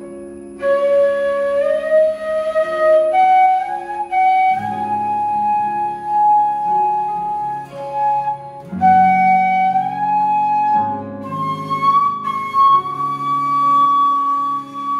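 Side-blown flute playing a slow melody with smooth slides between notes. It enters about half a second in, over sustained chords from acoustic guitars and a keyboard.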